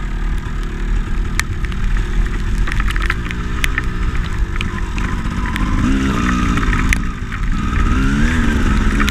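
Two-stroke dirt bike engine revving up and down repeatedly as the bike is ridden over rough trail, with scattered sharp clicks and rattles, heard from a camera mounted on the bike.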